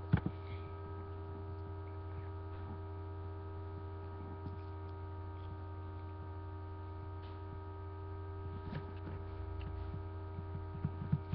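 Steady electrical mains hum with several constant tones above it, with a few faint clicks about a second in and again near the end.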